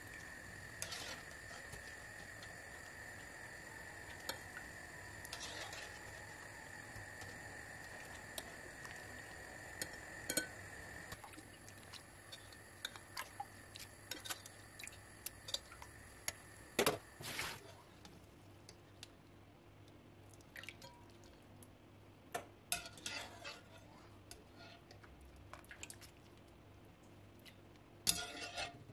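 Metal slotted skimmer scooping tangerine peels out of a pot of hot water and dropping them into a glass bowl of water: drips, small splashes and scattered clinks of metal on the pot and glass, with a sharper knock about two thirds of the way in and another near the end. A faint steady high hum runs through the first third and then stops.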